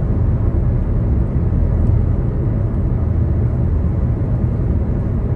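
Steady low rumble inside a car cabin cruising at motorway speed: tyre and road noise with the engine underneath.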